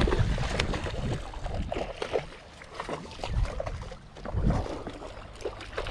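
Choppy sea water lapping and splashing, with wind rumbling on the microphone in a few low swells and scattered small clicks.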